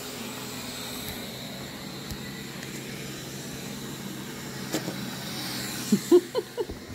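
Roborock S6 robot vacuum running on carpet, a steady hum. A click comes about five seconds in, and a few short pitched vocal sounds follow near the end.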